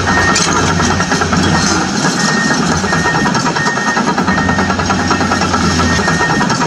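Steady engine rumble like a heavy excavator idling, with an intermittent high tone, accompanying an RC toy excavator as it works its boom and bucket.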